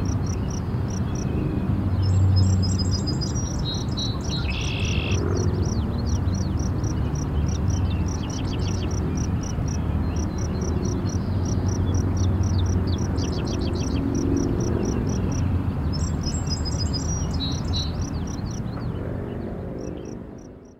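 Outdoor field ambience: birds singing in short phrases over a regular high insect chirp about three times a second and a steady low rumble, fading out near the end.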